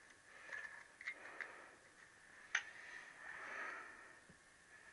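Faint clicks and clinks of small metal parts and tools being handled, with one sharper click about two and a half seconds in.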